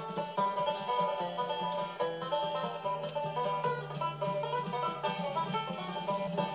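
Upbeat bluegrass-style banjo music: fast picked banjo notes over a steady bass line.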